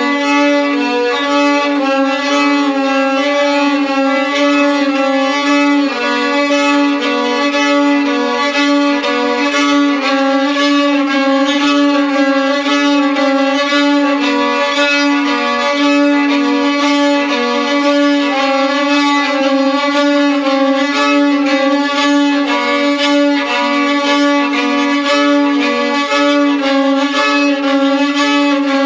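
Instrumental folk-style music with no singing: a busy fiddle melody over a steady held low note.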